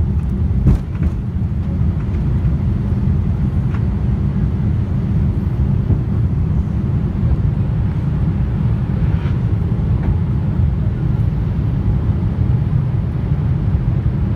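Steady low-pitched noise of a moving vehicle, heard from inside.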